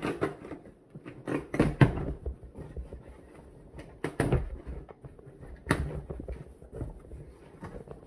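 A big cardboard box being handled and opened: irregular knocks, taps and scraping rustles, loudest about two seconds in.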